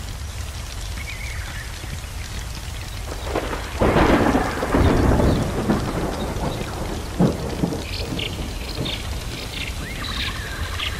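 Thunderstorm ambience: steady rain, with a clap of thunder about four seconds in that rumbles on for about two seconds. Scattered sharp crackles follow later on.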